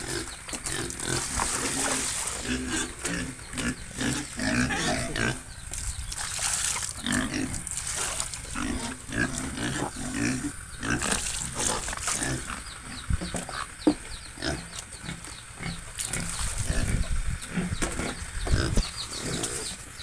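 Piglets grunting over and over in short, quick grunts.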